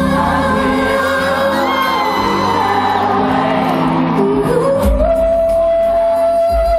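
Live pop ballad: a male singer's voice over the band, heard from the audience in a large arena hall. About four and a half seconds in he slides up into a long held high note.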